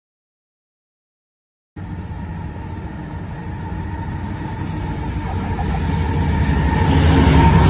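Silence for nearly two seconds, then a Sydney electric suburban train running: a low rumble that grows louder toward the end.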